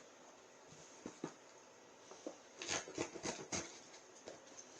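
Faint clicks, then a short run of crackling and rustling about halfway through, as a cardboard shipping package is handled and opened.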